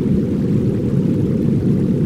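Steady layered noise of a subliminal track, deep and muffled with nothing in the high end, unchanging throughout.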